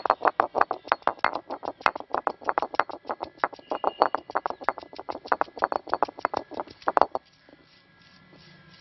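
Cylindrical stone roller of a granite grinding stone knocking rapidly on the flat slab as it crushes garlic, about six sharp knocks a second, stopping abruptly about seven seconds in.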